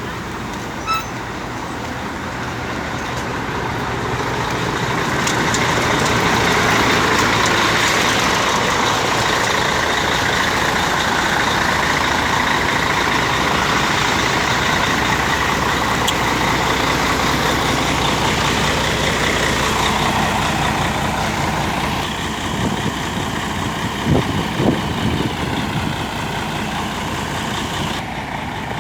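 Mercedes-Benz O-400 RSD bus's diesel engine running loud. It gets louder over the first several seconds, holds steady, then eases off about twenty seconds in, with two short knocks a few seconds later.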